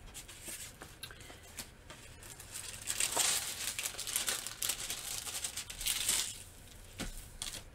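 Clear plastic protective film on a rolled diamond painting canvas crinkling as hands smooth it flat and turn the canvas over, louder for a few seconds in the middle.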